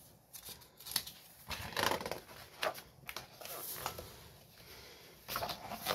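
A page of a large picture book being turned by hand: paper rustling, with a few short handling noises as the book is moved and smoothed.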